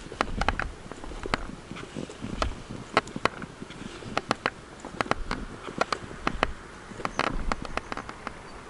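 Footsteps on a paved stone path, with irregular sharp clicks and knocks and a few brief low rumbles.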